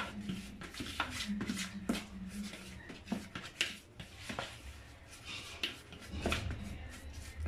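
A utensil stirring a moist spice paste in a plastic bowl: irregular soft scrapes and clicks against the bowl, over a faint steady hum.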